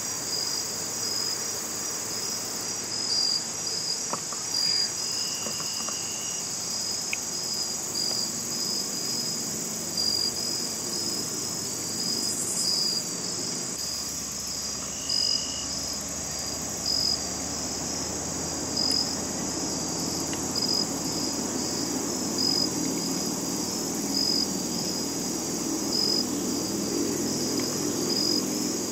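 Steady, high-pitched chorus of crickets and other insects, with regular pulsing chirps.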